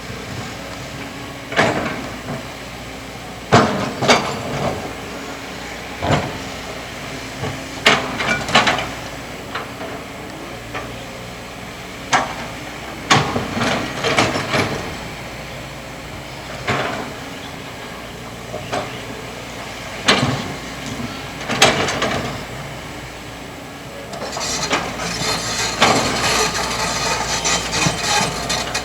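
Kobelco hydraulic excavator running steadily, with repeated sharp clanks and scrapes as its bucket digs into sand, and a longer stretch of rattling near the end.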